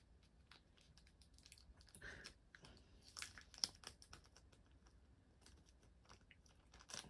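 Near silence broken by faint, scattered small clicks and crackles, with a few louder ones about three to four seconds in.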